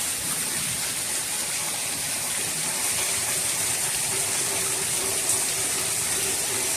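Heavy rain coming down hard and steadily onto a flooded patio, an even rush of falling and splashing water. A faint steady tone joins about four seconds in.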